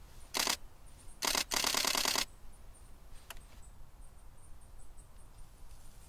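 Nikon D500 DSLR shutter firing in continuous bursts: a brief burst about half a second in, then a longer rapid burst of about a second. A single faint click follows a little after the middle.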